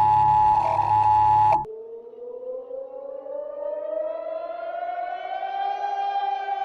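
Steady two-tone emergency alert attention signal over a low buzz, cut off abruptly about a second and a half in. A warning siren follows, its wail slowly winding up in pitch over several seconds and levelling off near the end.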